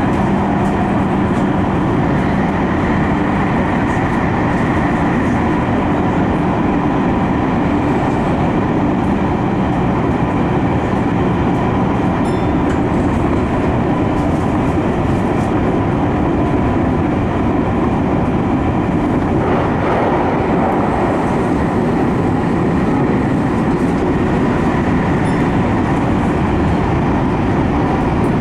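Tokyu 5050 series electric train running at a steady speed through a subway tunnel, heard from inside the car: a continuous rumble of wheels on rail with a steady hum from its traction equipment.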